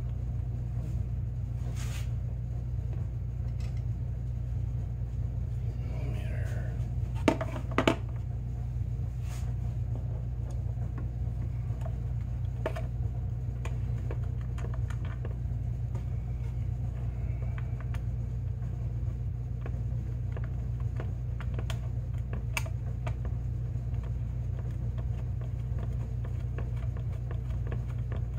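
Small clicks and knocks of hand tools and plastic parts being handled while fitting a snowmobile oil tank, over a steady low hum. Two sharper clicks come about seven and eight seconds in.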